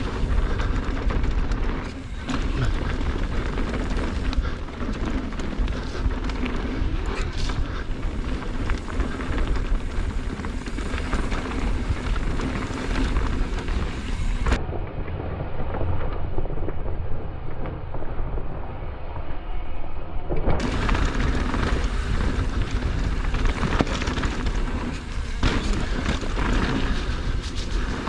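Mountain bike riding down a rough dirt trail: wind buffets the microphone in a low, steady rumble, with knocks from the bike over the ground. For about six seconds in the middle the sound turns duller and muffled.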